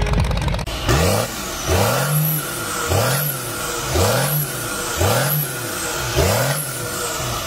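A diesel rat rod's engine blipped six times in quick succession, about once a second, each rev rising and falling in pitch with a high turbo whistle rising and falling along with it. Music ends about a second in, just before the first rev.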